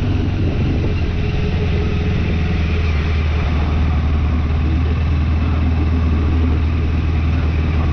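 Motorcycle engine running steadily with an even low hum.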